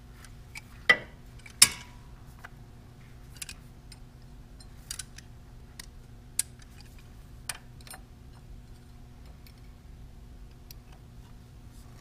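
Sharp metallic clicks and clinks of pliers working a hose clamp, two loud ones about a second apart near the start and fainter scattered ticks after, over a steady low hum.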